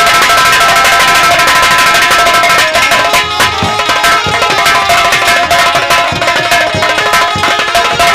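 Instrumental break in live nautanki folk-theatre music: rapid hand-drum strokes over steady held melody notes.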